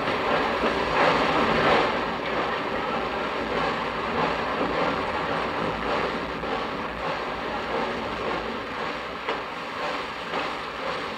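Passenger train running, a steady rumble and hiss of the carriages' wheels on the rails.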